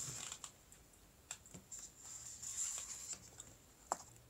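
Faint handling noise close to the microphone: a few light clicks and taps with soft rustling between them, the sharpest tap near the end.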